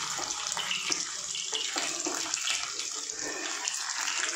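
Boiled baby potatoes shallow-frying in hot oil in a nonstick kadai: a steady sizzle with fine crackling.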